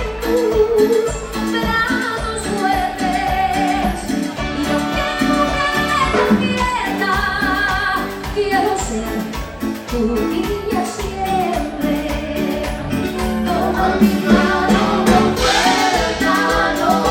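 Live dance orchestra playing, with a steady beat and a melody over it.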